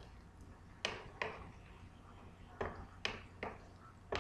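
Wooden spatula knocking and scraping against a frying pan while stirring onions sautéing in oil: about six short, sharp taps, coming in small groups roughly half a second apart.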